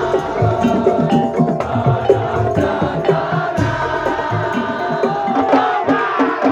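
Madurese ul-daul ensemble music: fast, dense percussion strokes under a sustained melodic line, with a sliding melody near the end.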